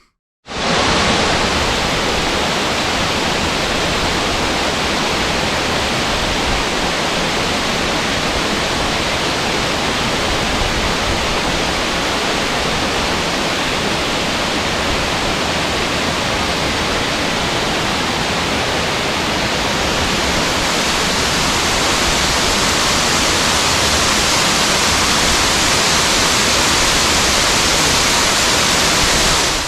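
Loud, steady rush of water, an unbroken roar with no separate drops or beats, starting and stopping abruptly.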